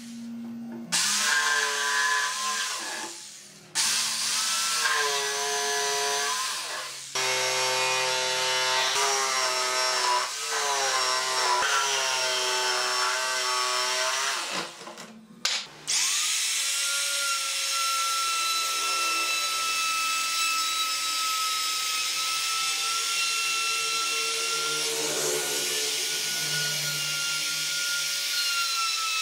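Electric jigsaw cutting a curve in a thick wooden board, its motor whining in three runs with short pauses between them. About halfway through, a trim router starts and runs with a steady high whine, routing the board's edge.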